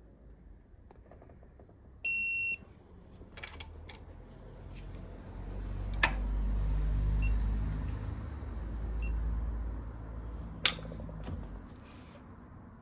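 A bolt being tightened to 50 newton metres with a wrench: a short electronic beep about two seconds in, then several seconds of low rumbling strain as the wrench is pulled, with two sharp clicks, one at about six seconds and one near the end.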